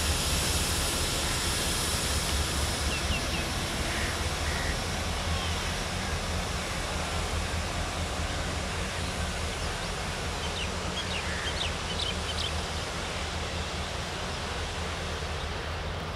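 Diesel locomotive hauling a train away, its engine drone and running noise steady and slowly fading as it recedes. A few short high chirps sound over it.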